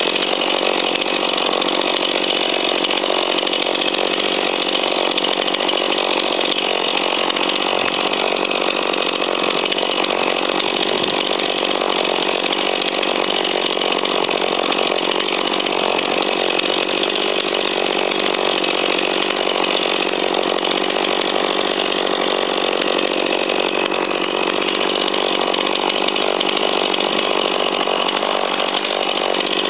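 Engine of a saw for clearing ash juniper, running continuously at a steady speed. Its level and pitch stay even the whole time, with no revving or cutting strokes.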